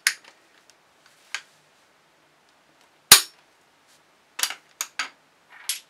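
Sharp metallic clicks and clinks of sockets and an ACDelco digital torque adapter being handled and fitted together, with one much louder knock about three seconds in.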